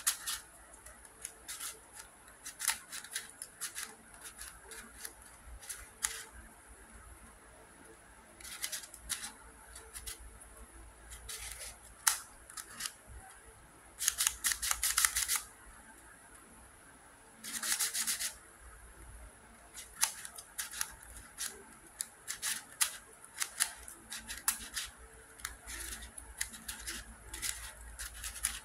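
Keychain Ivy Cube twisty puzzle being turned by hand: irregular clicks and clacks of the plastic pieces as the faces are twisted, with quicker runs of turns about fourteen and seventeen seconds in.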